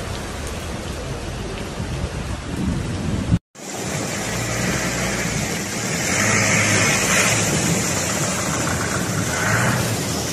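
Steady rushing noise of heavy rain. It cuts off abruptly about three and a half seconds in, then returns louder and brighter.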